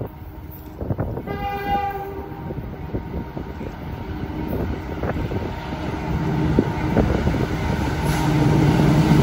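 Diesel freight locomotive's multi-note air horn gives one short blast about a second in, then the locomotive's engine sound builds steadily louder as the train approaches.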